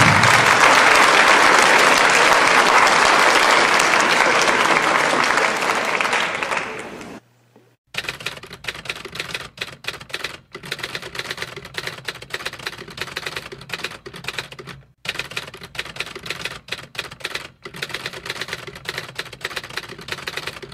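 Audience applauding for about seven seconds, then cut off abruptly. After a short gap comes a run of rapid typewriter key clicks, a typing sound effect, broken by a few brief pauses.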